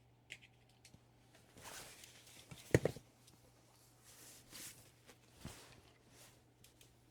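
Faint handling noises on a workbench: scattered rustles and small clicks, with one sharper knock a little under three seconds in, over a low steady hum.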